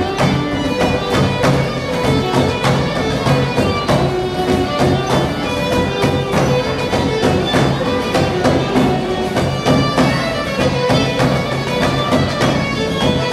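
Live Greek folk dance music from a small string ensemble: guitars and lutes strumming a steady, even beat under a bowed string melody.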